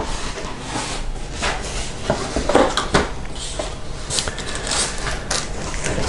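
Cardboard box and its polystyrene packing being handled and opened: continuous scraping and rubbing of cardboard, with a few sharp knocks along the way.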